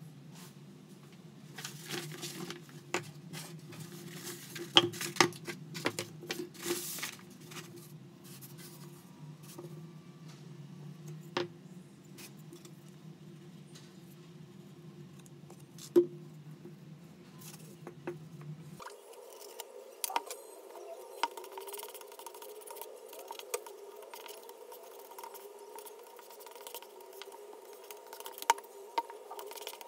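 Scattered clicks and taps of small hard objects being handled on a workbench, over a steady low hum. The background hum changes abruptly about two-thirds of the way in, as at an edit.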